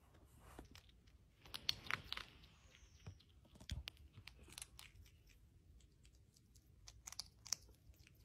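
Faint crunching and clicking of a bushbaby chewing a small treat held in its hands, with a few sharper crunches about two seconds in and again near the end.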